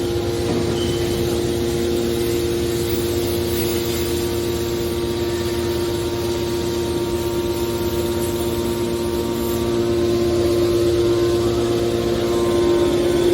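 Hydraulic metal baler running: a steady machine hum with a rough low rumble, growing louder near the end.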